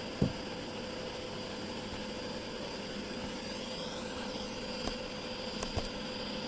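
Homemade fan-blown furnace running: a steady rushing roar of forced air and fire with a constant fan hum. There is one sharp knock about a quarter second in and a few faint ticks near the end.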